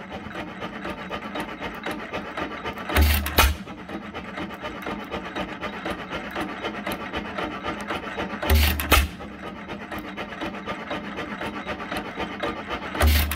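1915 Hercules 7 hp single-cylinder hit-and-miss gas engine running. It coasts with a steady rapid clatter and fires a quick pair of loud exhaust beats every four to five seconds, three times, as its governor lets it take a charge.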